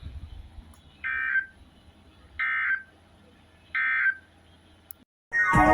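Three short bursts of Emergency Alert System SAME digital data tones, the end-of-message code, evenly spaced about a second and a half apart. A brief cutout follows, then music starts near the end.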